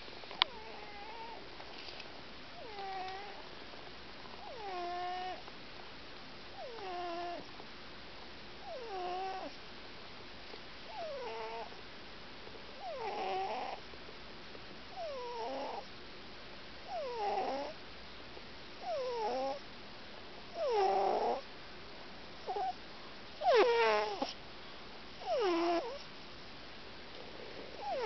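A sleeping cat snoring: a pitched, whistling snore on each breath, about every two seconds. Each one slides down in pitch, and they grow louder after the middle. A single sharp click comes near the start.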